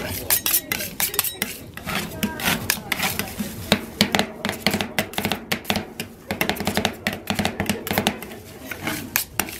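Two metal spatulas chopping and scraping ice cream mix on the frozen metal plate of a rolled ice cream machine. They make rapid, irregular clicks and scrapes as the mix is worked while it freezes on the plate.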